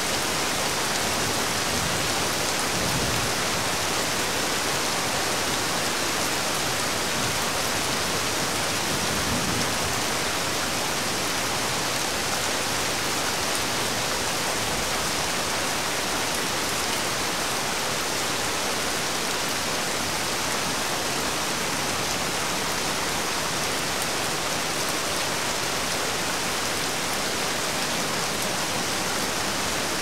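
Steady rain falling, an even, unbroken hiss of many drops.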